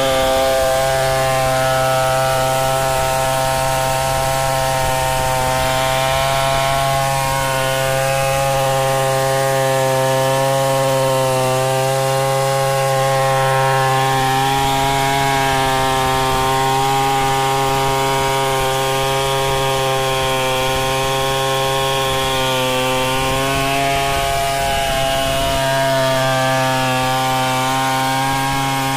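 Tecomec 070 two-stroke chainsaw running steadily under load while ripping lengthwise along a mahogany log in a freehand milling cut. Its engine pitch sags and recovers slightly a few times as the chain bites.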